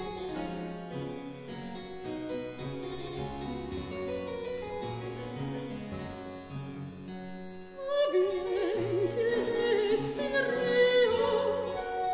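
Harpsichord playing a baroque passage. About eight seconds in the music gets louder as further performers enter, their sustained notes wavering with vibrato.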